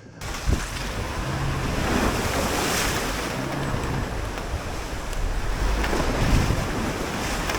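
Toyota Land Cruiser driving over a rough off-road trail: a heavy, steady rush of tyre and wind noise over a low engine hum that swells and fades, with an occasional knock.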